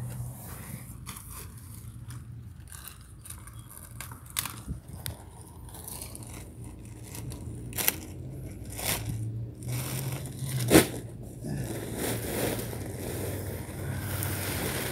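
Scraping and rustling close to the microphone, with scattered sharp clicks, the loudest about ten seconds in, over a steady low hum.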